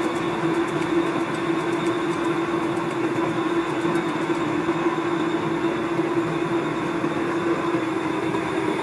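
Metal lathe turning a large gangsaw wheel ring, the cutting tool taking a steady cut with a constant hum and a faint high whine.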